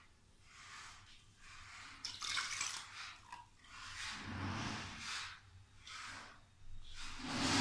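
Hand swishing and sloshing a thin gram-flour and yogurt batter in a steel bowl, in repeated strokes, with water poured in from a small steel cup partway through.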